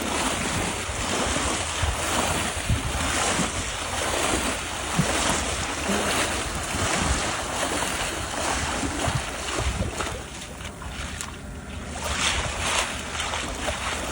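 Seashore surf with wind rushing over the microphone, a steady noise that eases for a couple of seconds about ten seconds in.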